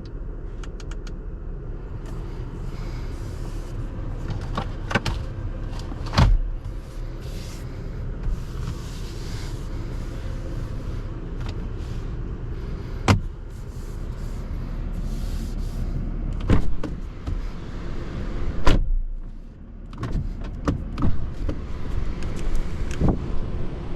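Porsche Macan 4 Electric driving, heard from inside: a steady low rumble of tyre and road noise with no engine note. Several short sharp knocks cut through it, the loudest about halfway through and again a few seconds later.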